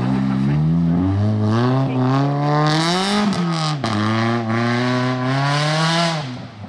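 Rally car engine at full throttle, accelerating hard through the gears: the pitch climbs and drops at each of three gear changes, with a few sharp cracks at the middle shift. It fades near the end as the car moves away.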